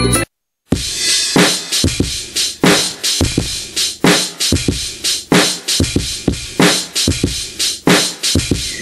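Hip-hop drum loop from a sampled drum kit: kick, snare and hi-hats in a steady beat, with a heavy snare hit about every 1.3 seconds. It starts after a brief gap just under a second in.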